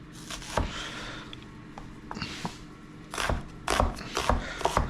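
Kitchen knife slicing an onion on a cutting board: a few scattered knocks, then a quicker run of chops from about three seconds in.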